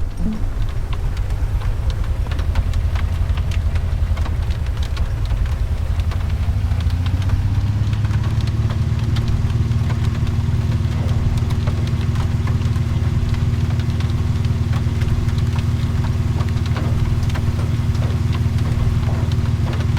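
A car engine running, its pitch climbing for a couple of seconds partway through and then holding steady, as when the car gets up to speed. Rain strikes the car with many scattered ticks.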